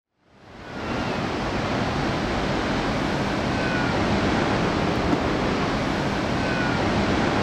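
Ocean surf: a steady wash of waves that fades in over the first second and then holds even.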